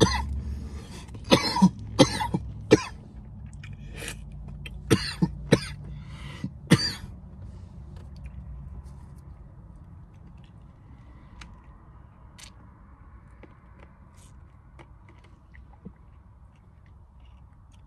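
A man coughing and clearing his throat: a string of about ten sharp coughs in clusters over the first seven seconds.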